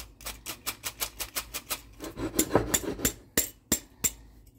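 Vintage hand-worked metal flour sifter in use: the wheel inside turns against the mesh with a fast, even clicking, about seven clicks a second, as flour falls through. The clicking thins to a few single clicks and stops shortly before the end.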